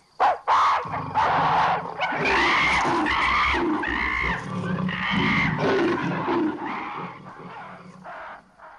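A group of ape-men hooting, shrieking and grunting, several voices overlapping in rising-and-falling calls, dying away near the end.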